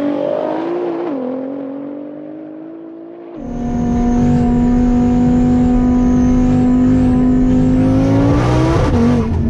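Tuned Audi TT RS 2.5-litre turbocharged five-cylinder heard from inside its stripped-out cabin, droning at steady revs while rolling along. Near the end the revs climb, then drop sharply. At first a fading engine note from the cars moving off down the runway.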